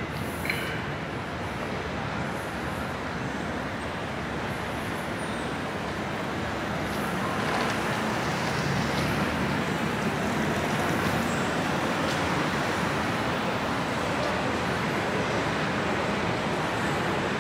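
Steady rushing noise of a railway station's surroundings, with trains or traffic running, growing a little louder about halfway through.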